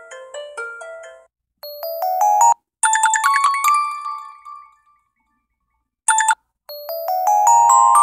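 Alcatel One Touch stock ringtones previewed one after another as the selection changes. A plucked melody cuts off about a second in. Short electronic tunes of bell-like notes follow, starting and stopping with gaps between them, and the last is a rising arpeggio that builds near the end.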